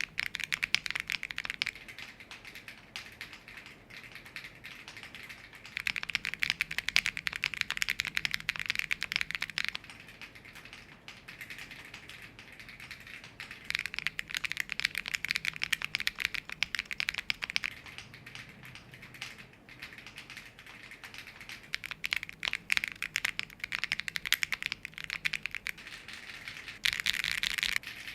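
Mechanical keyboard being typed on fast: a dense, rapid clatter of key switches. It comes in loud spells of hard typing with softer clicking in between.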